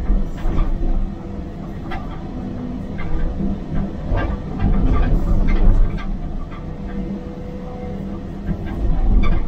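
Caterpillar excavator's diesel engine and hydraulics working under load, heard from inside the cab, with the bucket scraping and clattering through broken concrete rubble. The engine swells louder about four to six seconds in and again near the end as the bucket digs.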